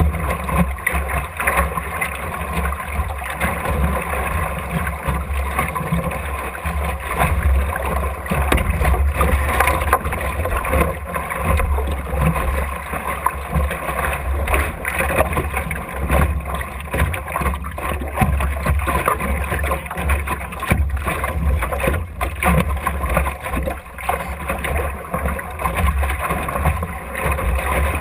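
Optimist dinghy sailing in a fresh breeze, heard from a camera fixed in the bow: water splashing and gurgling against the hull, with irregular small slaps, over a steady low rumble of wind on the microphone.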